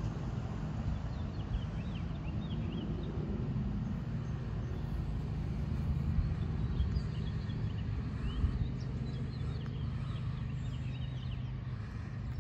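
Birds chirping over a steady low rumble.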